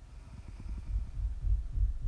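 Low, irregular throbbing rumble of a sleeping woman's breathing in the pause between snores, growing louder from about a second in.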